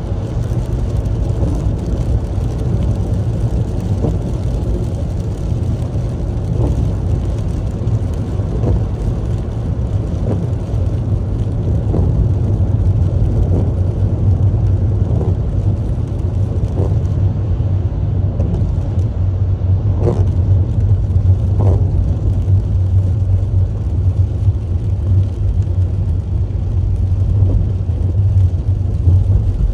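A car driving on rain-wet city streets, heard from inside the cabin: a steady low rumble of engine and tyres. Short swishes of the windshield wipers come every couple of seconds.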